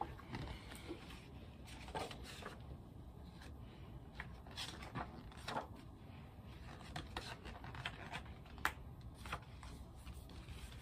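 A picture book's pages being turned and handled: faint, scattered paper rustles and soft clicks.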